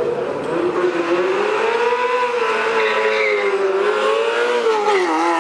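Ferrari 348's V8 held at high revs in a burnout, the rear tyres squealing as they spin. The pitch wavers up and down and dips briefly near the end.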